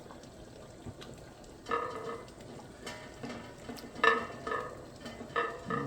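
A ladle scooping beef soup out of the pot, knocking against it several times with short ringing clinks.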